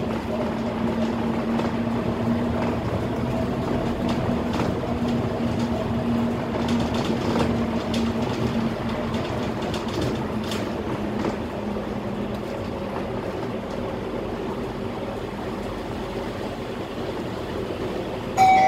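Cab interior of a Scania K320 articulated bus cruising, with its diesel engine and drivetrain giving a steady hum over road noise and a few light rattles. The hum fades about halfway through. A short electronic chime sounds near the end.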